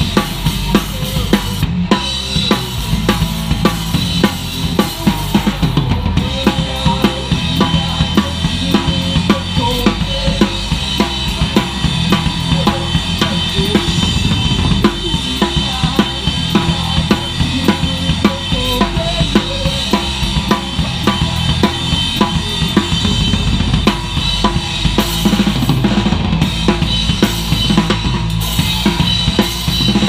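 Live horror punk band playing a song: the drum kit is loudest, with a driving beat of kick and snare hits and cymbals, over a sustained bass guitar and electric guitar.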